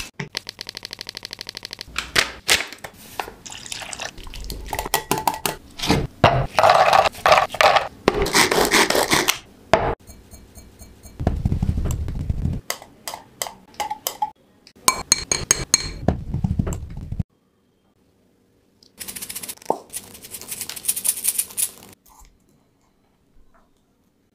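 Kitchen sounds of an Oreo dessert being made: cookies are scraped and crushed to crumbs with a pestle in a drinking glass, and metal utensils clink and tap against the glass. The sounds come in short, sharp bursts, with a brief quiet gap about two-thirds of the way through.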